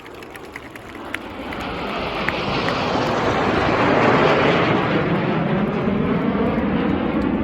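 Formation of BAE Hawk T1 jet trainers approaching low, the jet engine noise building over the first few seconds and then holding loud.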